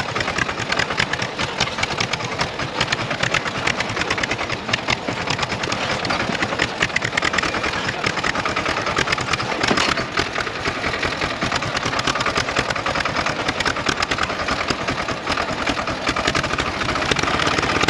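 Tractor's diesel engine running with a rapid, even clatter.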